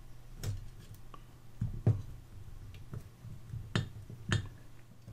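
Screwdriver tip clicking against the small metal fitting on a Garrard phonograph motor's drive shaft as the striker is worked loose: several separate sharp clicks a second or so apart.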